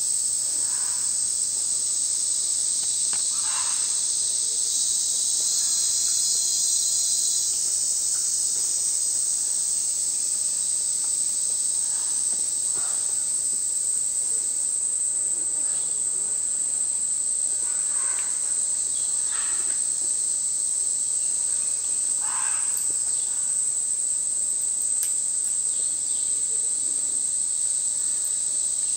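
Steady high-pitched chorus of rainforest insects, swelling briefly about five seconds in, with a few short faint calls scattered through it.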